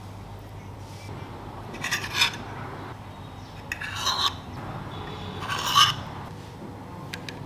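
Potato dough pieces being set down and slid onto a metal baking tray, making three short scrapes about two seconds apart. A low hum runs underneath.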